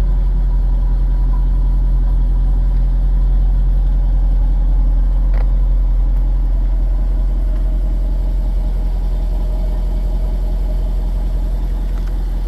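Jaguar XKR's supercharged 5.0-litre V8 idling steadily with a low, even hum. A single light click comes about five seconds in.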